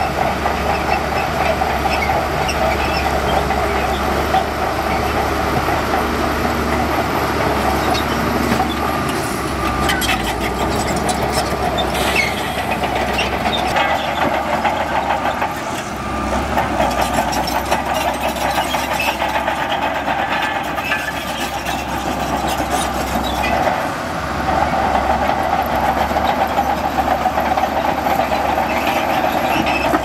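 Bulldozer's diesel engine running steadily, with a few clanks about ten to twelve seconds in.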